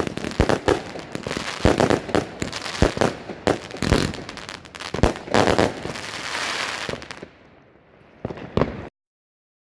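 Pinto 'Sydney' compound firework battery (188 shots, 25–30 mm) firing its last shots: rapid bangs of shells bursting in the air, with a steadier noisy stretch about six seconds in. It then dies away to two last bangs near the end, and the sound cuts off abruptly.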